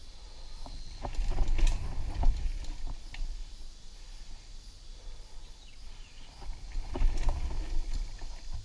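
Mountain bike riding over a dirt singletrack: a low rumble of tyres and bumps with scattered clicks and rattles from the bike. It gets louder about a second in and again around seven seconds, over rollers in the trail.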